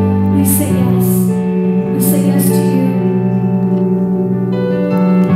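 Live band music: a woman singing over keyboard and sustained accompaniment, played through a concert PA.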